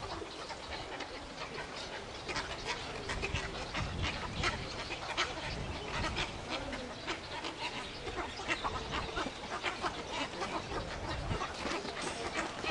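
A breeding colony of cattle egrets calling, a constant chatter of many short, overlapping calls.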